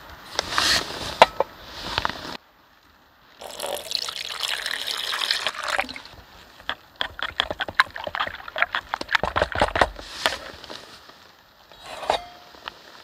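Water poured into a collapsible silicone bowl, a steady splashing pour lasting a couple of seconds. Then a metal spork stirs the soapy water with rapid clicks and scrapes against the bowl.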